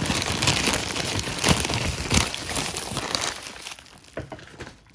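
A parcel bag crinkling as it is handled: dense crackling for about three and a half seconds, then dying down to a few light clicks.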